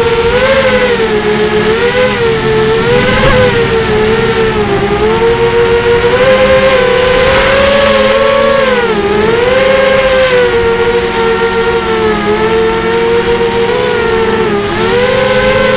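FPV drone's electric motors and propellers running, heard through its onboard camera: a steady whine whose pitch dips and rises again and again as the throttle changes in flight.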